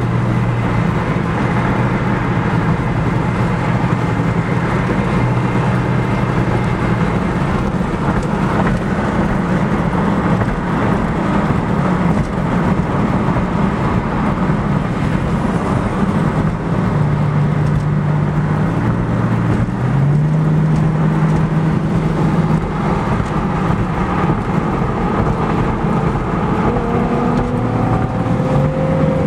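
Car engine and tyre and road noise heard from inside a car at highway speed. The engine note steps up and down in pitch several times and rises near the end.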